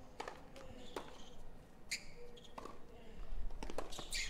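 A serve followed by a rally: tennis rackets striking the ball, heard as sharp pops about a second apart.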